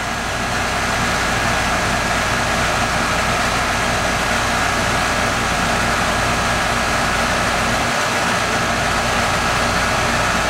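Residential R-410A air conditioning condensing unit running steadily: a constant fan rush over a low compressor hum, getting a little louder over the first second.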